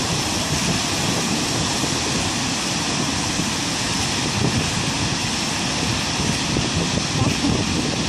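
Large waterfall rushing: a steady, loud wash of falling water with no let-up.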